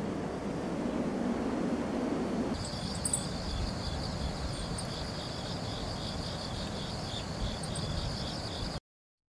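A low rushing wind noise for the first couple of seconds, then insects chirping in a steady, pulsing high trill, with a few brief higher chirps. The sound cuts off abruptly about a second before the end.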